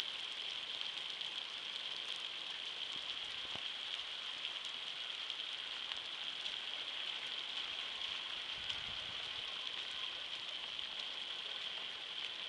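Steady rain falling on floodwater and wet grass, a dense, even patter of drops.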